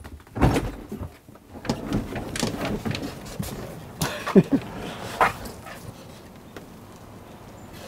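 Heavy aircraft service door on a Boeing 727 being unlatched and swung open: a string of separate clunks and knocks over about five seconds, with a short pitched creak about four seconds in, then quieter.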